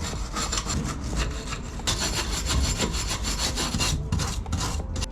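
Hand ratchet wrench being swung back and forth on a bolt, a rapid rasping run of clicks in repeated strokes.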